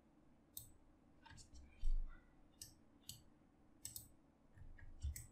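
Irregular clicking of a computer mouse and keyboard, about ten sharp clicks spread over five seconds, with a soft low knock about two seconds in.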